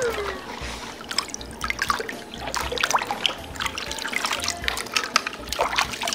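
Hands swishing and splashing a small toy car through a plastic basin of water, giving many small irregular splashes and drips. A whistling tone sliding down in pitch fades out right at the start.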